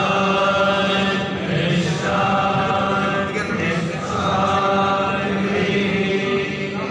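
Group of voices chanting a devotional mantra together, on long held notes in phrases about two seconds long.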